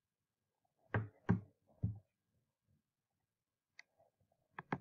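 Three short, soft knocks about a second in, then a few faint clicks near the end, with silence between them.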